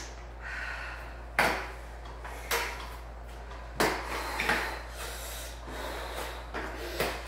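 Indoor spin bike knocking and clunking as it is mounted and pedalled: about five sharp thumps at uneven spacing over a steady low hum.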